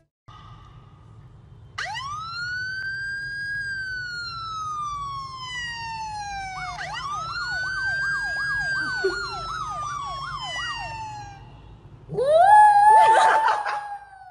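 A siren sound played from a phone: a wail that rises quickly and falls slowly, twice, with a fast yelping warble over the second fall. About twelve seconds in, a poodle howls along for about two seconds, louder than the siren.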